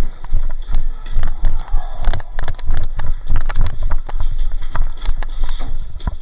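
Footsteps of a player moving quickly with airsoft gear, a steady run of thumps about two to three a second, mixed with many sharp clicks and rattles.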